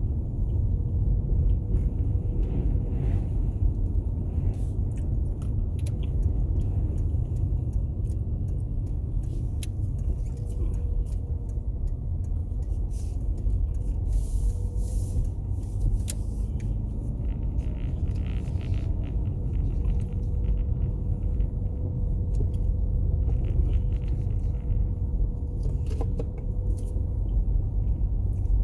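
Strong wind buffeting the microphone in a snowstorm, a steady low rumble with faint clicks above it.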